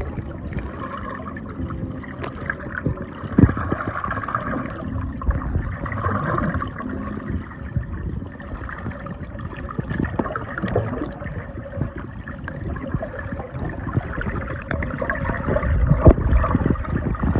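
Underwater sound of a swimmer breathing out slowly through the nose a little at a time, air bubbles gurgling irregularly over a steady low rumble of water, with a few sharper knocks.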